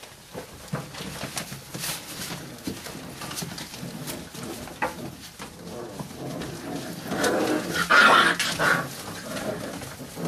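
Five-week-old bandog puppies playing in a pile, with puppy sounds and scuffling; the loudest burst of puppy noise comes about eight seconds in.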